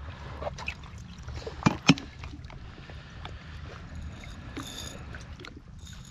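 Water sloshing and splashing around a floating plastic bait bucket as it is handled, over a steady low rumble. Two sharp plastic knocks a little under two seconds in, as the bucket's lid is shut, with scattered small clicks after.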